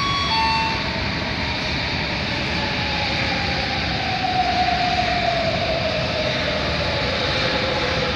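Rubber-tyred Sapporo subway Namboku Line train approaching the platform through the tunnel: a steady rumble with a motor whine that falls slowly in pitch and grows louder as the train slows in. A brief two-note tone sounds right at the start.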